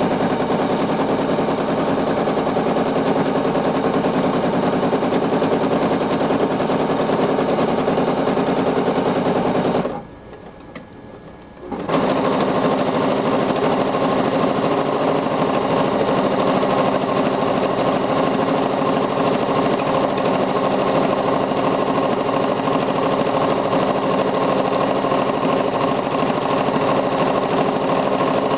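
Sewing machine running steadily while free-motion quilting feathers, with a rapid needle stitching rhythm. It stops for about two seconds about ten seconds in, then starts again.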